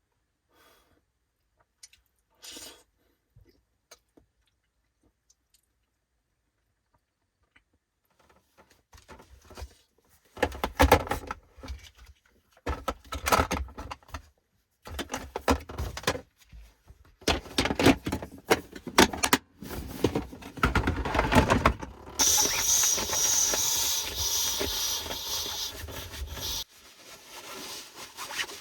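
A few faint clicks, then irregular rustling and knocking of things being handled, followed by a steady hiss that lasts about five seconds and cuts off suddenly.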